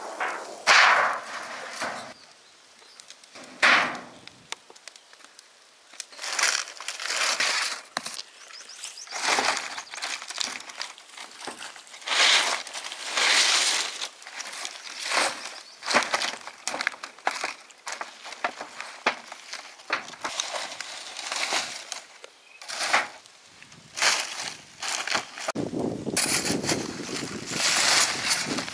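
A metal sheet scrapes as it is laid over a cooking pit, then bursts of rustling as stiff palm fronds are spread on top. Near the end a hoe scrapes and drops loose soil onto the fronds.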